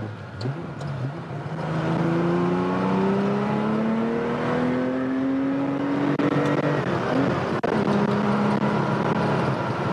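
1979 Porsche 911 SC's air-cooled 3.0-litre flat-six, with SSI headers and a twin-pipe exhaust, freshly rebuilt and being run in. A quick throttle blip near the start, then the engine pulls through a gear with its pitch rising steadily for about five seconds, an upshift about seven seconds in, and it runs on at a lower pitch.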